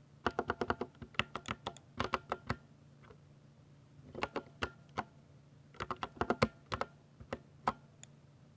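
Typing on a 60% mechanical keyboard with Ducky silver (linear) switches: quick runs of key clacks in three bursts with short pauses between, then a single keystroke near the end.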